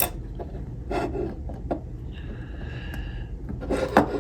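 Die-cast model cars being handled and turned over on a tabletop: a few light clicks and knocks of metal-and-plastic toy cars being picked up and set down.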